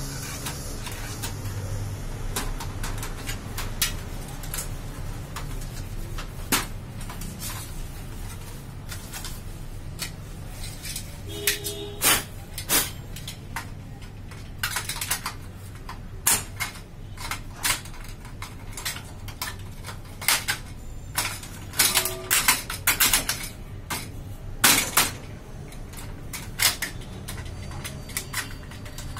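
Irregular clicks and clatter of plastic and metal parts being handled and fitted inside the open paper path of a Xerox WorkCentre 7500-series copier, over a low steady hum. The clicks come thicker and louder in the second half.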